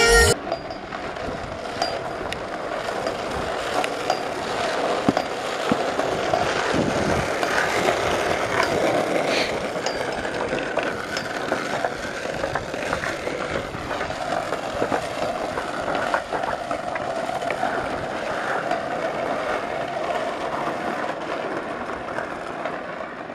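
Skateboard and kick-scooter wheels rolling on an asphalt street: a steady rough rolling hiss with scattered small clicks and knocks.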